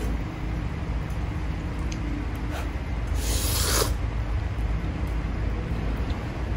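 Eating sounds of instant noodles: a few faint clicks, then a loud airy slurp lasting under a second about three seconds in, over a steady low hum.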